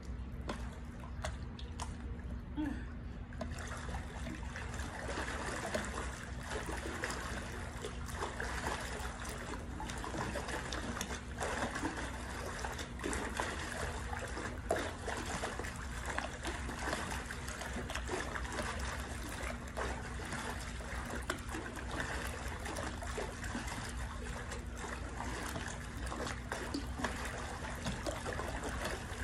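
Swimming-pool water splashing and churning as a person kicks her legs at the pool's edge, a steady run of small splashes that fills out about three and a half seconds in.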